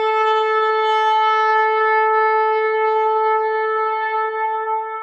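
A single long horn blast held on one steady note, fading slightly near the end: the sounding of the angel's trumpet.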